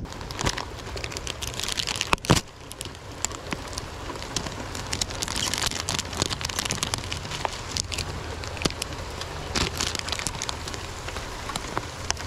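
Rain pattering steadily, with thin plastic packaging crinkling as a fishing lure is unwrapped by hand. There is a sharp click about two seconds in.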